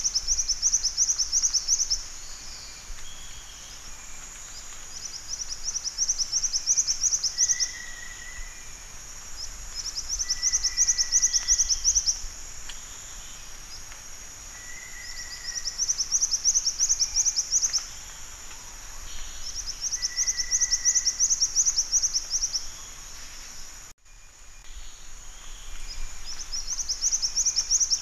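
Black-winged flycatcher-shrike singing: a rapid, high trill about two seconds long, repeated six times at intervals of a few seconds over a steady high background hiss.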